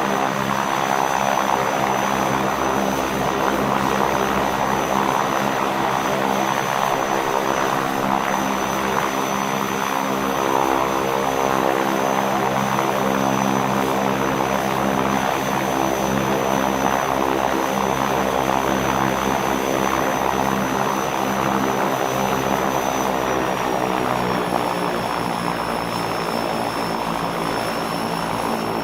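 Beechcraft King Air's twin turboprop engines idling, heard from outside: a steady propeller drone under a high turbine whine. About 23 seconds in, the whine and the drone drop slightly in pitch and the sound eases a little.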